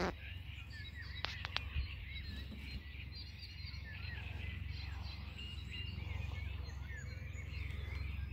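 Several songbirds singing and chirping, with a few sharp clicks a little over a second in, over a steady low rumble.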